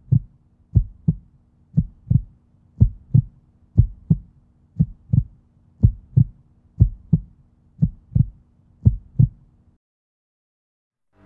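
Heartbeat sound effect: pairs of low thumps (lub-dub), about one pair a second, that stop shortly before the end.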